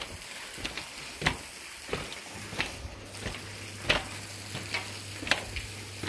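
Footsteps on a walkway floored with loose bamboo strips: the slats crackle and rustle underfoot, with a sharper step roughly every second and a bit.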